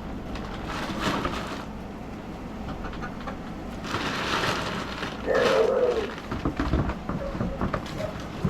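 Chicken calling, with one loud wavering squawk about five seconds in, amid bursts of rustling and scraping.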